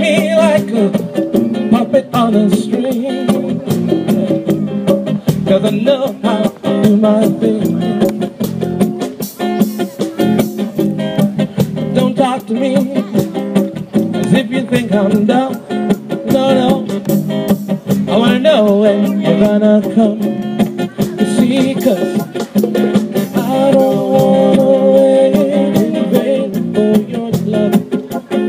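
Live band music from keyboard, congas, drum kit and acoustic guitar, playing steadily and loudly.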